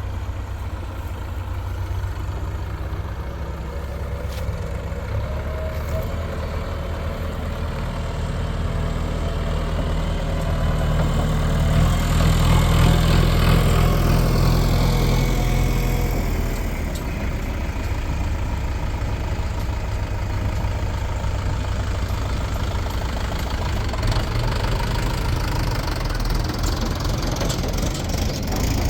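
Heavy diesel machinery engine running steadily, speeding up and growing louder about ten seconds in, then settling back to a steadier run about six seconds later, as when working under load.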